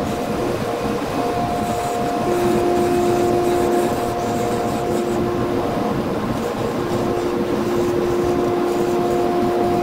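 Wood lathe running while a narrow chisel cuts a spinning wooden shift knob: a steady machine hum with scraping from the cut, and a steady tone that comes and goes in stretches of a few seconds.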